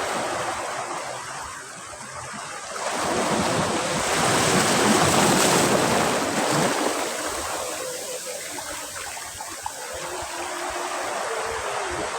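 Sea waves breaking on a beach: a wave swells in about three seconds in, is loudest a few seconds later, then eases off as it washes back.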